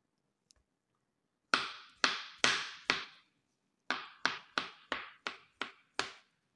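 Knife chopping through a peeled avocado onto a plastic cutting board: eleven sharp taps, four evenly spaced, then after about a second's pause seven slightly quicker ones.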